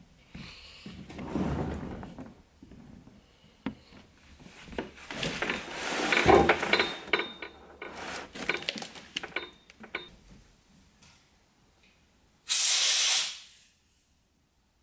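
Rustling, scraping and knocking of objects being handled and moved about, loudest in the middle. Near the end comes a loud, even hiss lasting about a second.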